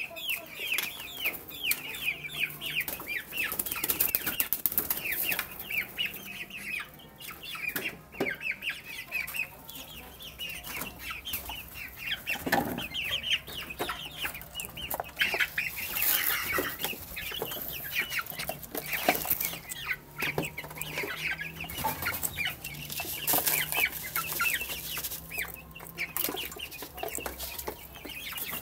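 A group of chicks peeping constantly, many short high falling peeps overlapping, with scattered sharp taps among them.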